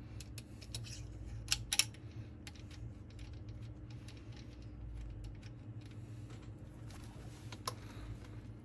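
Light metallic clicks and taps as a refaced rocker arm and its adjusting screw are handled on a rocker shaft for a dial-gauge lift check, loudest about one and a half to two seconds in, with a single click near the end, over a steady low hum.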